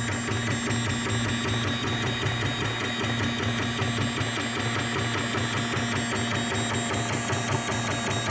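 3D printer at work, its stepper motors and fan giving a steady whir with several high, steady whining tones.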